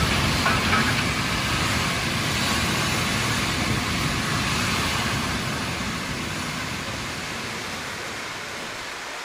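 A steady rushing noise with a deep rumble underneath, fading gradually over several seconds.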